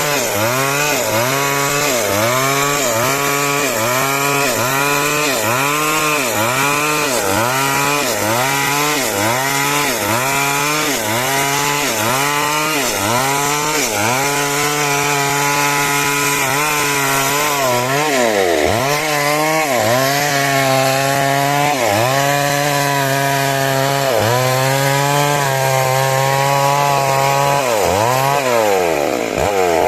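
Two-stroke chainsaw running at high revs and cutting lengthwise through timber. The engine pitch dips and recovers about once a second as the chain loads in the wood, then falls away near the end as the throttle eases off.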